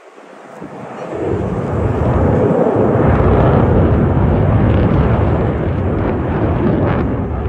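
Jet aircraft flying past low at an air show: a loud, deep roar that swells over about a second and then holds steady.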